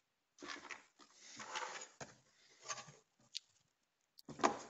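Handling noise of a CB transceiver's metal case being picked up and turned over on a desk: a run of short rubbing and scraping sounds, a sharp click a little past three seconds, and a louder knock-and-scrape near the end.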